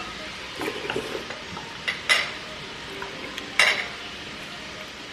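Mealtime table sounds: a few short knocks and clinks of utensils and dishes, three louder ones about one, two and three and a half seconds in, over a steady low hiss.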